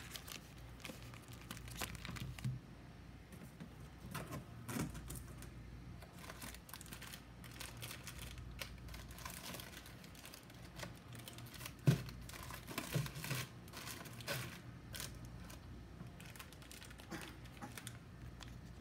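Plastic food wrappers crinkling and rustling as packaged snack bars and pouches are handled and set down, with irregular light clicks and one sharper knock about twelve seconds in.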